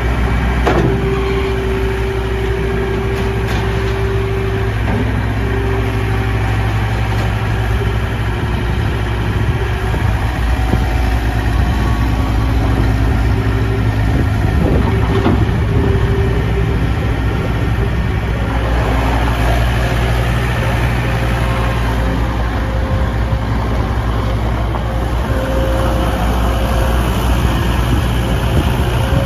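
John Deere 320 skid steer loader's 66 hp John Deere diesel engine running steadily. About two-thirds of the way through, the sound grows busier and fuller.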